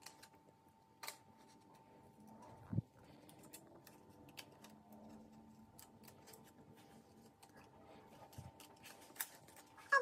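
Scissors snipping through paper: many faint, short clicks of small cuts, with one dull thump about three seconds in.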